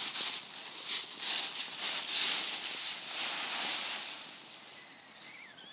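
Dry fallen leaves crunching and rustling underfoot in uneven bursts, growing quieter after about four seconds.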